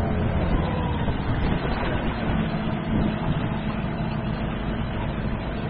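Small boat outboard motor running steadily, with a deep rumbling noise underneath.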